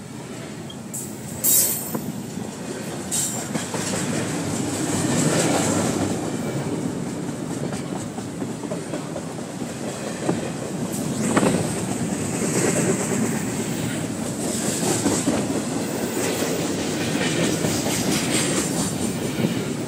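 Double-stack intermodal container train's well cars rolling past: a steady rumble of steel wheels on rail, with clicking over the joints and a few sharper clanks, about a second and a half in, around three seconds in and again about eleven seconds in.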